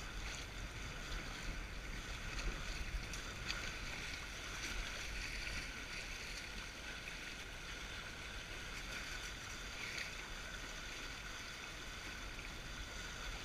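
Water rushing and splashing along the hulls of a Windrider 17 trimaran sailing in light wind, a steady wash, with a low rumble of wind on the microphone.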